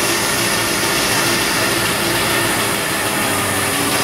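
Hand towel folding machine with a lamination unit running: a steady mechanical hiss and hum with a few constant whining tones over it.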